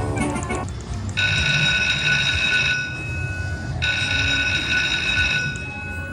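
Lightning Link Tiki Fire slot machine playing its electronic game sounds: a quick run of short melodic notes, then two long held chime tones about a second apart, over a low casino rumble.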